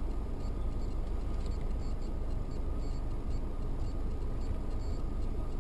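Car driving, heard from inside the cabin: a steady low rumble of engine and tyre noise, with faint, irregular light ticks.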